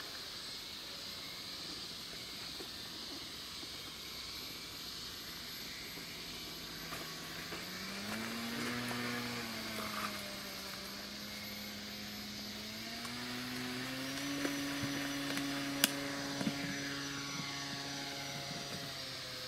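Small RC seaplane's motor and propeller whining, its pitch following the throttle: rising about eight seconds in, easing back, then rising again about fourteen seconds in as the plane goes from taxiing on the water to taking off. A single sharp click sounds about sixteen seconds in.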